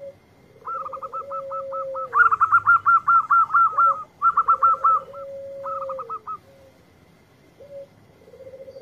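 Zebra dove (perkutut) cooing: a fast run of short hooked notes, loudest about two to four seconds in, over a lower drawn-out coo that drops at its end, heard three times.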